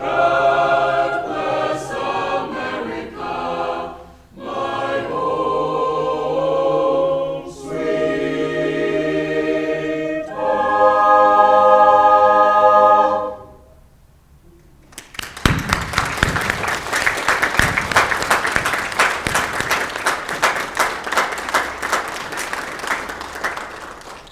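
High school concert choir singing the closing phrases of a song, with short breaks between phrases and a loud held final chord that stops about halfway through. After a brief pause, an audience applauds until the clapping fades near the end.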